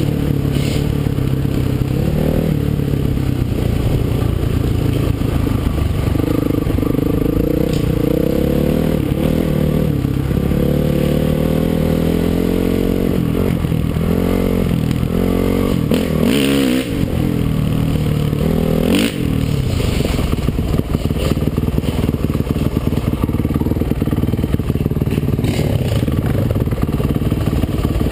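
Dirt bike engine running under load on a trail ride, its pitch rising and falling with the throttle, with a couple of brief drops in revs past the middle.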